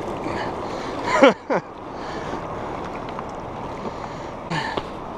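Steady rush of river water against a rocky bank, with wind on the microphone. A short, loud sound with a falling pitch cuts in about a second in, and a smaller one comes near the end.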